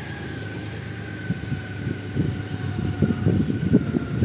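Honda Gold Wing's flat-six engine idling steadily, with uneven low rumbling that grows louder over the second half.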